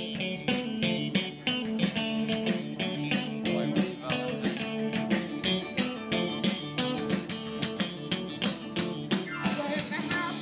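A live rock band playing: electric guitars over a steady drum beat.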